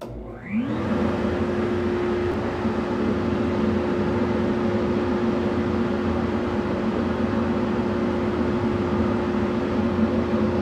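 DPF test-table blower starting up, its whine rising in pitch over about half a second, then running steadily with a rush of air forced through a diesel particulate filter for a restriction (backpressure) test.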